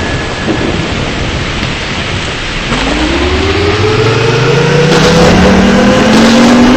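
Federal Signal 2T22 dual-tone outdoor warning siren winding up: about three seconds in, two tones start rising together and keep climbing, over a loud rushing noise.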